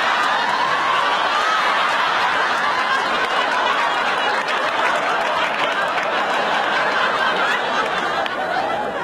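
Audience laughing steadily, easing off slightly near the end.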